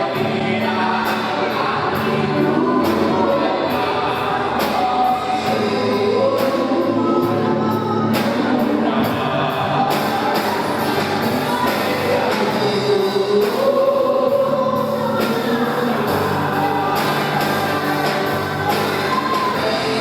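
A worship group singing a Portuguese-language gospel song in several voices, over a band with a steady beat.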